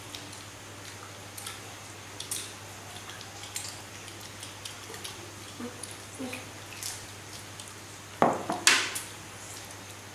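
Small clicks and handling sounds of a meal of grilled duck and rice eaten by hand, with a steady low hum underneath. About eight seconds in comes a louder clatter of a few knocks.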